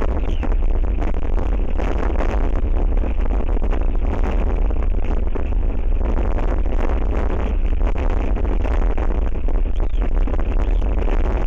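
Strong wind buffeting the outdoor nest-camera microphone: a loud, steady rumble with a rushing hiss on top.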